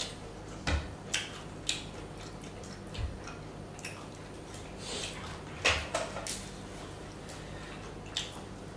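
Close-up eating sounds: scattered wet mouth clicks, smacks and chewing, some eight or so short sounds with a small cluster just before the middle.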